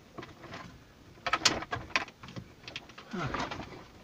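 Plastic knocks, clicks and scrapes as a double-DIN head unit in its dash bezel is pushed into the dash opening with the wiring behind it, the sharpest cluster of clicks about one and a half seconds in. A brief low grunt-like voice sound a little after three seconds.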